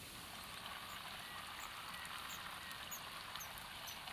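Faint steady hiss of a campfire with a steaming metal kettle heating on it. From about a second and a half in, short high chirps repeat about every half second.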